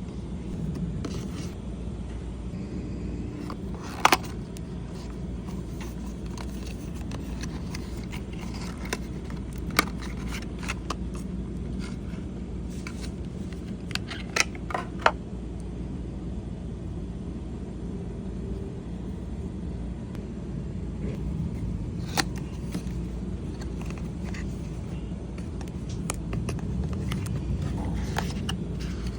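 Lightstick packaging being handled and opened: scraping of the box and wrapping with a few sharp clicks and snaps, over a steady low rumble.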